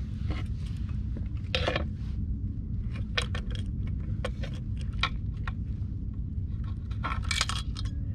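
Light metallic clicks and clinks of fishing tackle being handled by hand, scattered irregularly with small clusters, over a steady low rumble.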